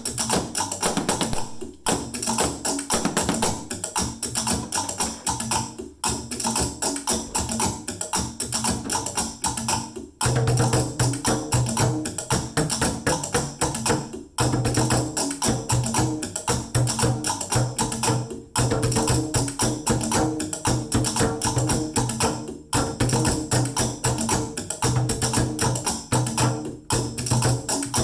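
Percussion jam with a fast, steady rhythm of tapped and shaken hits, played on everyday household items such as sticks and plastic containers struck as drums. It drops out briefly about every four seconds, and a pulsing low bass part joins about ten seconds in.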